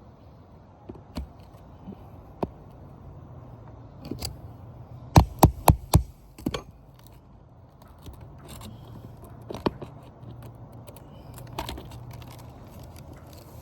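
Hand tools knocking and scraping on asphalt roof shingles, with scattered clicks and a quick run of four hard strikes about five seconds in.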